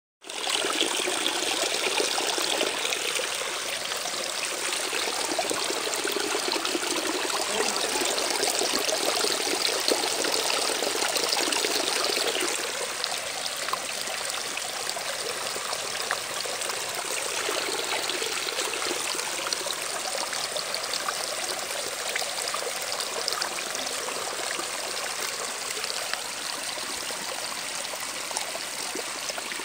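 Steady, even rushing noise like running water, dropping slightly in level about twelve seconds in.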